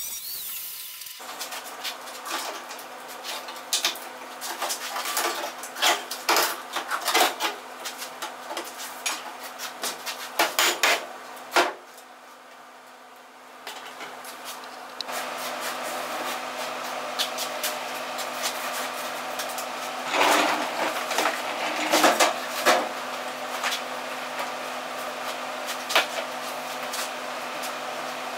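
Angle grinder cutting through the rusted sheet-metal door skin, stopping about a second in. Then come scattered metallic clanks and knocks as the loose rusty door-bottom metal is worked with a hammer and handled, over a steady low hum.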